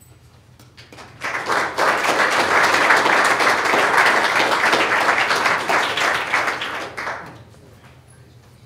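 Audience applauding: a crowd's clapping starts about a second in, holds steady for about six seconds, then dies away.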